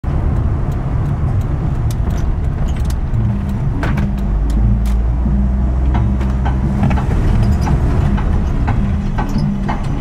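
An engine running steadily with a low rumble, with scattered sharp clicks and rattles over it.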